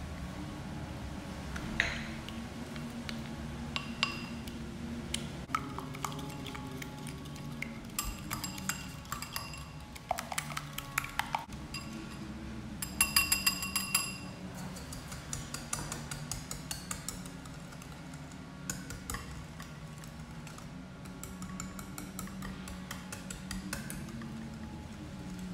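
A spoon and whisk clinking and scraping against a glass bowl as cornstarch is stirred into liquid, with a fast run of loud clinks about halfway through. Near the end the clinking moves to a whisk beating egg yolks in a ceramic bowl.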